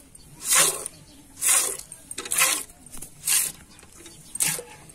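Cow being milked by hand into a steel pail: jets of milk squirt into the pail with a hiss, five squirts at about one a second.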